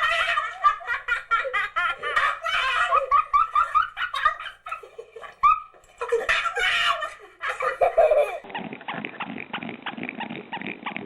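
Hearty laughter in rapid, choppy bursts. About eight seconds in, the sound changes abruptly to short, repeated animal calls.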